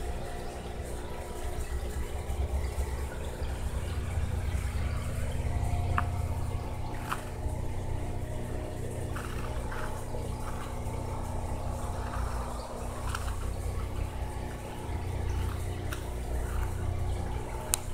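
Aquarium water trickling and moving over a steady low hum from the tank's running equipment, with a few sharp clicks.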